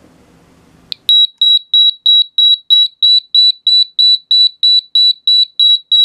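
Sonalert piezo alarm beeper on a homemade sump high-water alarm panel, set off with its test button: a click about a second in, then loud, rapid high-pitched beeping, about three beeps a second, that stops near the end. This is a test of the sump water-level alarm.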